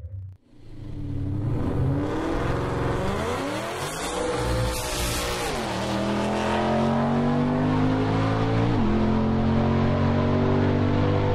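Turbocharged Ford Mustang GT drag car's V8 at full throttle down the quarter mile. The engine note climbs steadily in each gear and drops sharply at two upshifts, about halfway through and at about three-quarters.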